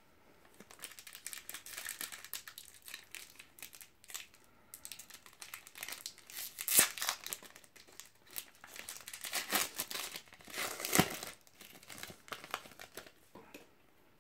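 A foil trading-card booster pack being torn open and crinkled by hand, a dense run of crackles and rips. The loudest sharp rips come about halfway through and again a few seconds later.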